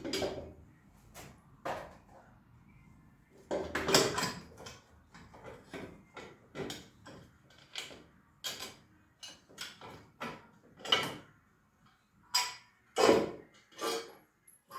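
Irregular clicks, knocks and short scrapes of hand tools and scooter parts being handled during disassembly, with the loudest knocks about four seconds in and again near the end.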